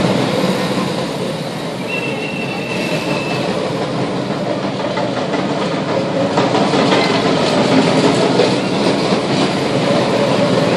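Kiddie bumper car ride running: steady mechanical noise of the small cars moving over the concrete pad, with a brief high tone about two seconds in.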